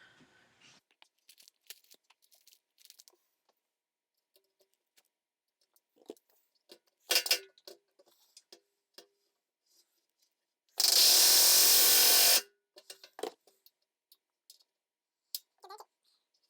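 Pneumatic rivet gun driving a 1/8-inch AN470 aluminium rivet in one even burst of about a second and a half near the middle, after a shorter burst about 7 seconds in. Light clicks and knocks of tools and rivets being handled come between the bursts.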